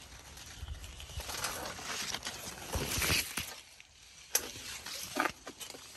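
Corn leaves rustling and brushing against each other as the stalks are pushed aside. There is a single sharp click a little past four seconds in.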